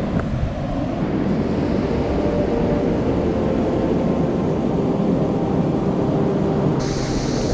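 Wind buffeting the microphone over breaking surf, a steady low rumble, with a brighter hiss of surf joining near the end.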